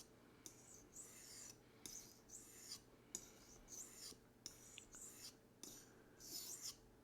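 Faint, repeated strokes of a knife blade scraping down a gray ceramic sharpening stone, about two passes a second with brief pauses between them, held at a 15-degree angle by an edge guide.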